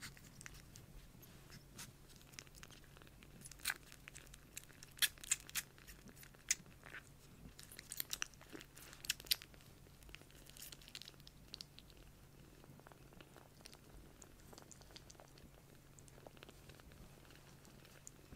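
A tiny newborn kitten purring steadily and faintly. Scattered sharp clicks come from the kitten's mouth against the hand from about three to eleven seconds in.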